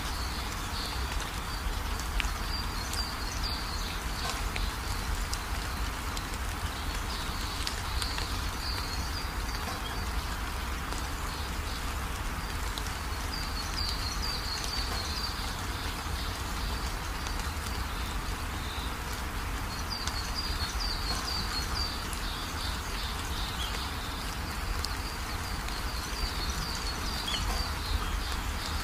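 Steady hiss of outdoor ambience with a brief burst of high chirping about every six seconds, like insects or birds over rain.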